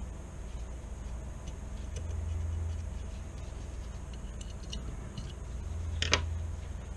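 Small steel parts of a Marlin Camp 9 carbine's action clicking and clinking as they are handled and fitted, with a cluster of light ticks and then one sharp metallic click about six seconds in.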